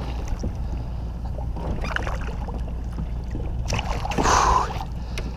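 A hooked false albacore splashing at the side of a small inflatable boat as it is grabbed by the tail and landed, with the loudest splash about four seconds in, over a steady low hum.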